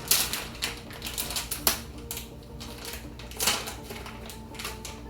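Irregular clicks and clinks of hand tools and car parts being handled, with sharper knocks about a second and a half in and again near three and a half seconds.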